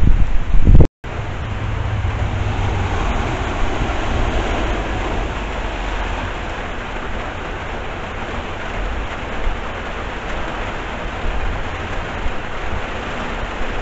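Steady heavy rain, with a car driving slowly through deep floodwater and its tyres throwing up a rushing spray. The first second is loud rumbling wind on the microphone, cut by a brief dropout.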